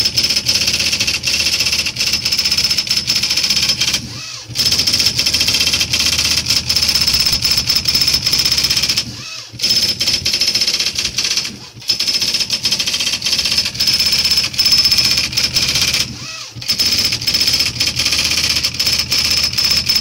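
IBM Wheelwriter 1000 daisy-wheel typewriter printing automatically from its memory: a fast, continuous clatter of print-wheel strikes over a steady high whine, breaking off briefly four times.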